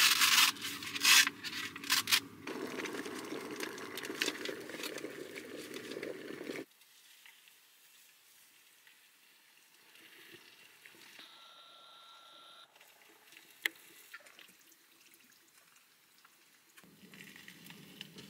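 Water poured into an instant noodle cup, a steady splashing stream. It follows a few sharp clicks at the start and breaks off suddenly after about six and a half seconds. It starts again near the end.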